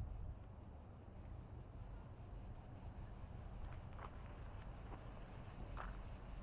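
Insects singing in a steady high chorus that pulses evenly, about four or five pulses a second, with a few faint clicks in the middle.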